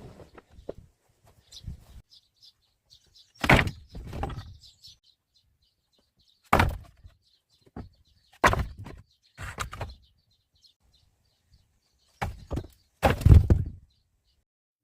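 A series of six loud knocks and clatters, a second or a few seconds apart, like hard objects being dropped or banged, with birds chirping faintly between them.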